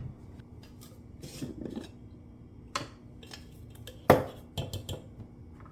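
Kitchen clatter: a handful of separate clinks and knocks of dishes or glassware, the sharpest about four seconds in, with a softer rustle before them.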